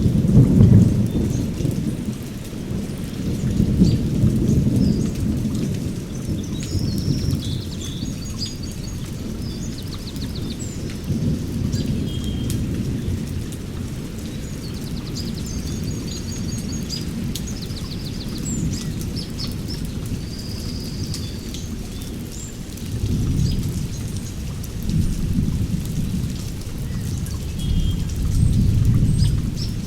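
Thunderstorm: steady rain with thunder rolling underneath, the deep rumble swelling and fading several times.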